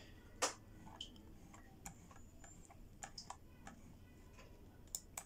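Quiet, irregular light clicks of a computer mouse working a phone's screen, scrolling a file list and selecting. One sharper click comes about half a second in, and two close together near the end.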